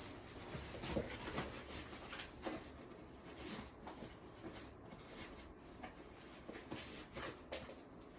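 Faint, irregular rustling and soft ticks of someone dressing, handling boot laces and clothing.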